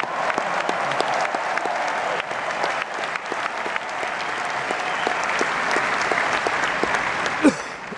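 Large crowd applauding, a dense steady patter of many hands clapping. Near the end comes one brief, loud sound that falls in pitch.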